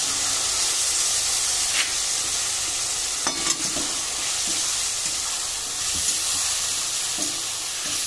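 Boiled green jackfruit and potato cubes sizzling in hot oil in a steel karahi, just given turmeric, salt, spices and a splash of water: the masala frying stage. A steel spatula stirs them, with a few clicks against the pan.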